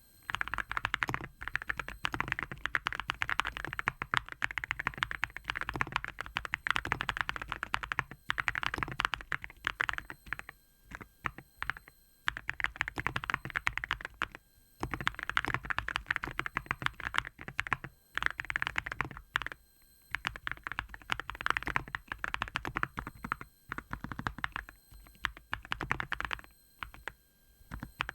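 Cerakey Nada65 mechanical keyboard with ceramic keycaps being typed on fast, in runs of rapid keystrokes broken by short pauses. Each stroke is a muted, hard 'koto-koto' clack, the sound the board is tuned for.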